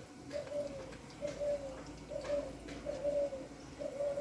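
A dove cooing: five short, slightly falling coos at the same pitch, a little under a second apart.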